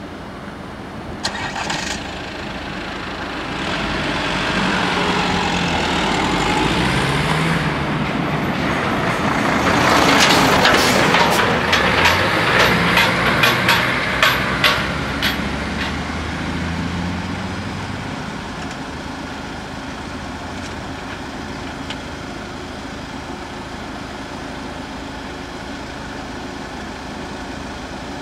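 A diesel skip-loader truck drives past, its engine getting louder and then fading away. As it goes by there is a run of sharp metallic rattles and clanks from its loader body.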